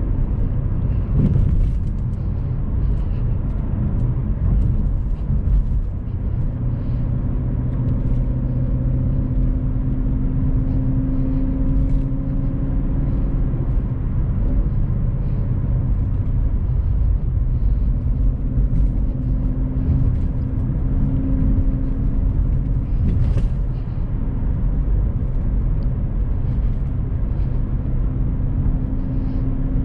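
Ford Mustang GT's 5.0-litre V8 running steadily while cruising, heard from inside the cabin with road rumble. Faint squeaks and creaks come and go, from two packs of bottled mineral water left in the trunk.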